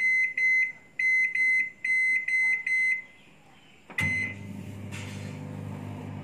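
Convection microwave oven's keypad beeping rapidly, a dozen or so short beeps as the timer is stepped up to 3 minutes. About four seconds in, a click and a last beep start the oven, and it runs with a steady hum.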